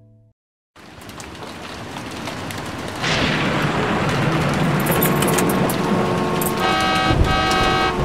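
Heavy rain fading in out of silence and growing louder about three seconds in, with traffic noise under it. From about five seconds, car horns honk in long steady blasts, several at once near the end, with a low thump about seven seconds in.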